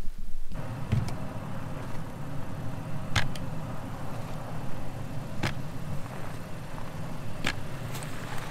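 A vehicle's engine idling steadily as it warms up in deep cold. Over it come four sharp strokes of a snow brush on the windshield, about two seconds apart.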